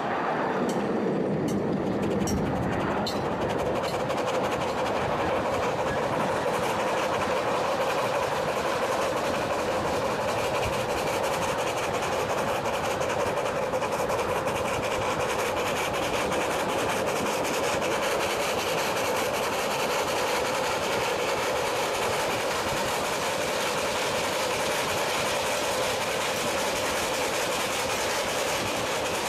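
15-inch-gauge park railway steam locomotive running along the track, heard from the car right behind it: a steady rush of exhaust, running gear and wheels on the rails.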